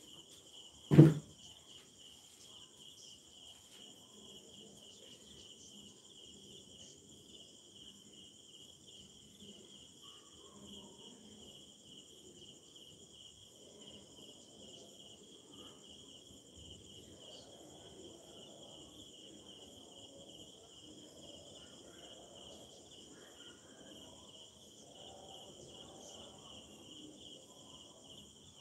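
Crickets trilling steadily with a fast even pulse, and one loud thump about a second in.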